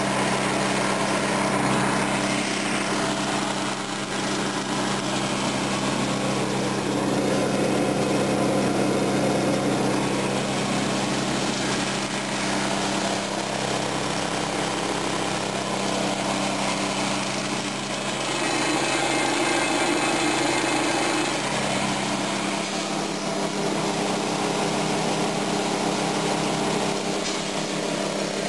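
Briggs & Stratton 5 HP single-cylinder engine running steadily at speed, driving a chipper-shredder, with the level swelling slightly now and then.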